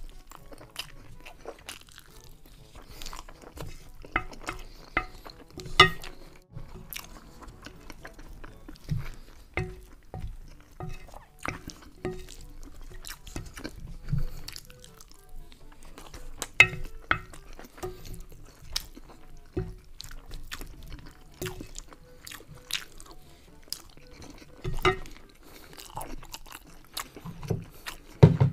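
Close-miked eating: a wooden spoon scraping and tapping on a ceramic plate while a mouth chews rice and fried chicken, with irregular sharp clicks and wet smacks throughout.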